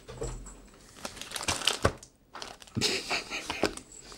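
Plastic wrapping crinkling in short irregular bursts, with a few sharp clicks, as a small cardboard box is handled and unwrapped.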